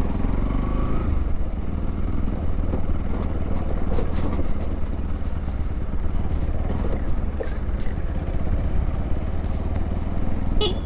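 Motorcycle engine running steadily, a low even rumble, with a brief high-pitched sound near the end.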